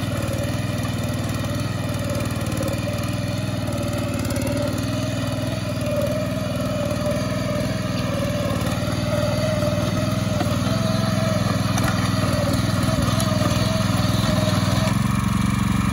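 A VST Mestro 6.5 hp power weeder's engine running steadily under load while its rotary tines till wet paddy mud, growing a little louder about two-thirds of the way through.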